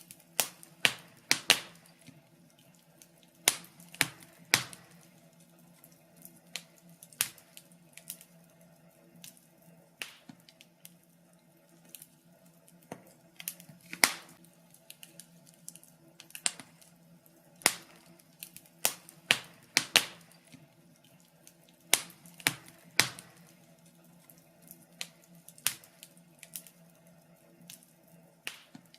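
Wood fire crackling in a fireplace: irregular sharp pops and snaps, a few of them much louder than the rest.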